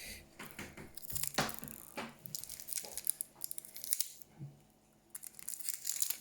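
Thin plastic cover being pulled and peeled off a small smoke alarm, crinkling and crackling in irregular bursts with sharp clicks and a brief pause about four seconds in.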